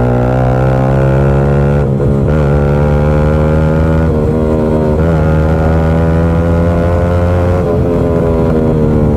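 Yamaha R15 V3's single-cylinder engine through a loud SC Project aftermarket exhaust, accelerating hard on the road with short breaks in the note at the gear changes.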